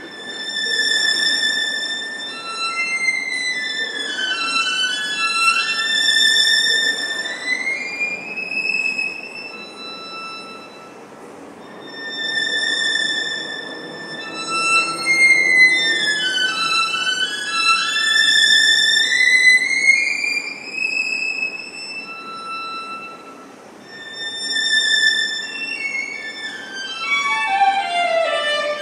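Solo violin playing unaccompanied: held high notes broken by quick scale runs up and down, with a fast descending run near the end.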